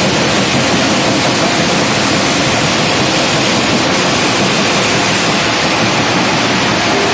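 Stone crushing plant running, with a jaw crusher fed with rock from a chute: a loud, steady roar with no distinct knocks.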